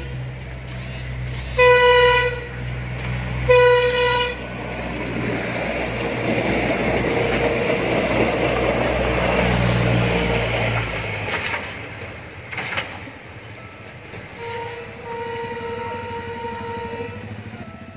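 PNR PT INKA diesel multiple unit sounding two short horn blasts, then its diesel engines and wheels rumbling loudly as it passes close by; the rumble drops away about eleven seconds in. Near the end a fainter, longer horn blast sounds.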